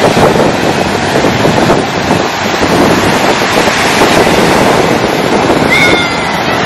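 Ocean surf breaking on a sandy beach, mixed with strong wind buffeting the microphone: a loud, steady rushing noise.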